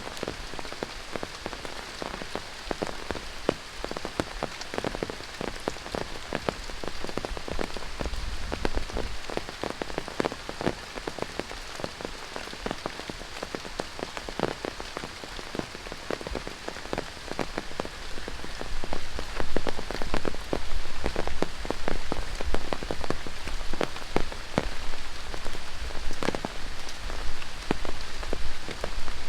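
Heavy tropical rain falling through rainforest, a dense patter of countless drops, getting louder about two-thirds of the way in.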